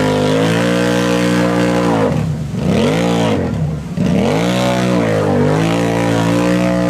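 ATV engine revving hard and held at high revs as its tires churn through deep mud, with two brief throttle lifts about two and three and a half seconds in before it climbs back up.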